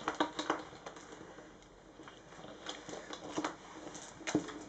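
Small letter-game tiles clicking against each other and the tabletop as hands slide and pick them up: scattered light clicks, thinning out in the middle and picking up again in the second half.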